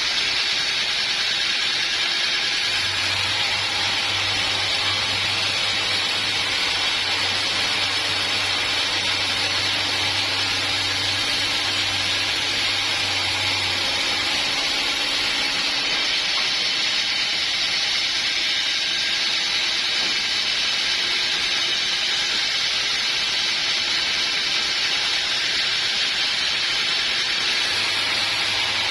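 Sawmill saw cutting through a log with a steady, loud hissing noise. A low hum comes in about three seconds in, drops out about halfway through, and returns near the end.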